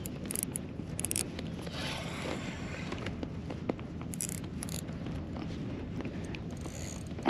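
Small scrapes, clicks and short hissy bursts of hands working a spinning reel and its line, over a steady low background.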